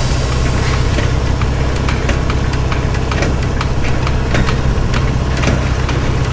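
Car assembly line machinery: a steady low drone with frequent, irregular sharp clicks and clanks over it.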